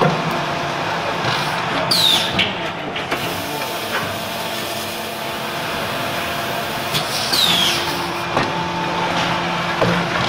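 Terrazzo tile press machinery running with a steady mechanical hum, with a short high squeal falling in pitch about two seconds in and again about five seconds later, and a few light knocks.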